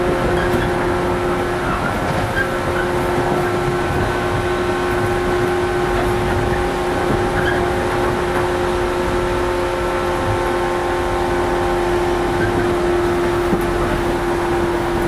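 JR 115-series electric train running at a steady speed, heard from inside the car: the DC traction motors give a steady hum of several held tones over the continuous rumble of wheels on rail.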